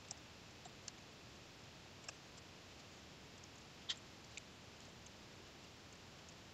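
Near silence, broken by a few faint, scattered clicks from typing on a computer keyboard. The loudest click comes about four seconds in.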